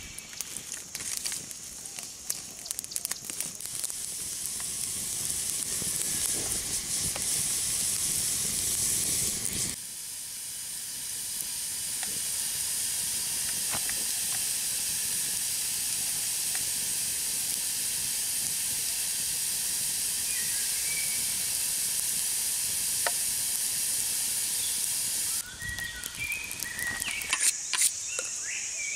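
Open twig fire crackling and popping under a green bamboo tube of roasting eggs, with a steady high hiss of steam and sizzling from the heated bamboo. The hiss is steadiest in the middle; near the end it gives way to a few sharp clicks.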